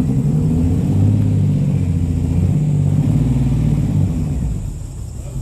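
Holden VK Commodore's 202 straight-six engine running and being revved up and down, then easing off near the end.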